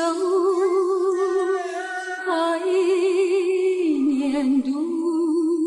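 Background song: a woman's voice sings slow, long held notes with a wide vibrato. The pitch steps down about two seconds in and dips lower for a moment around four seconds.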